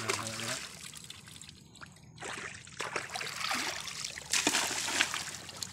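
Shallow seawater splashing and trickling in uneven bursts as people wade and handle a seine net by hand.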